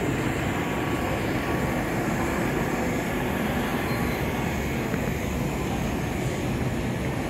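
Steady low rumbling street noise, even throughout, with no distinct events standing out.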